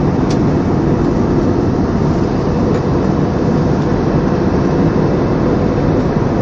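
Steady cabin noise of a jet airliner in flight: the underwing jet engines and rushing airflow heard from inside the cabin as an even low rumble with a hiss above it.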